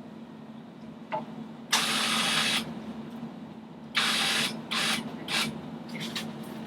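Serving thread being pulled and rubbed along a compound bowstring while tying in a peep sight: one long hissing rasp, then three shorter ones, with a few light clicks, over a steady low hum.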